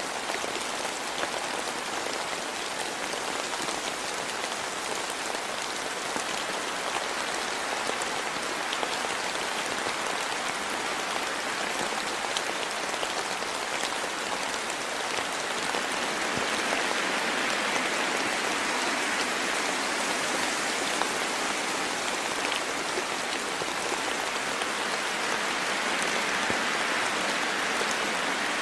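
Steady rain falling in a forest, a dense patter of raindrops hitting leaves and the ground.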